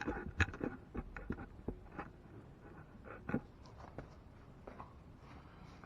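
Scattered light clicks and knocks, the loudest about half a second in and just over three seconds in, growing sparser and fainter toward the end.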